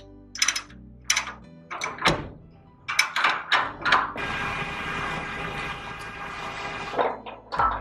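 Metal clanks and clicks of a ratchet binder being cranked tight on a roll-off dumpster's tie-down, a stroke every half second or so through the first four seconds. Then a steady hissing noise with a faint hum for about three seconds, and a few more knocks near the end.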